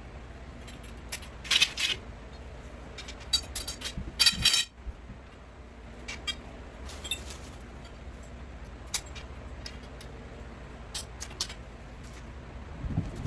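Metal grow-tent frame poles and connectors clinking and clattering as they are handled and fitted together, in scattered sharp clicks with two louder clatters, over a steady low hum.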